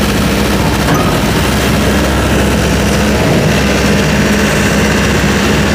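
Heavy diesel engine of a Hino truck running steadily with a deep drone. The low rumble gets stronger about a second and a half in.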